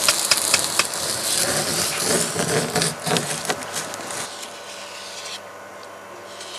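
Adze hollowing out a wooden dugout canoe: a quick run of sharp strikes into the wood, then rougher chipping and scraping that fades about four seconds in.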